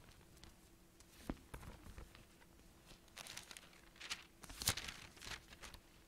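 Faint rustling and flicking of thin Bible pages being turned while a passage is looked up: a handful of short crinkly strokes, most of them in the second half, over a faint steady room hum.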